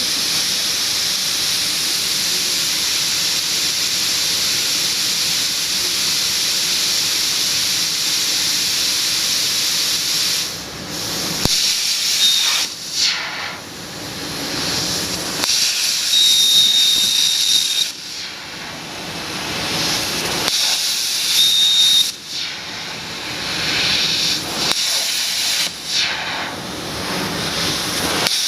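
Hypertherm XPR300 plasma torch cutting on a CNC table: a loud, steady hiss for about ten seconds, then uneven stops and restarts, with a short high whistle three times in the second half.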